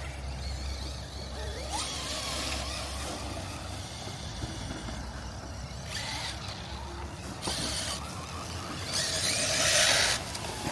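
Traxxas Mini Maxx RC monster truck driving in several short bursts, heard as rushing noise that comes and goes four times, loudest near the end, over a steady low rumble.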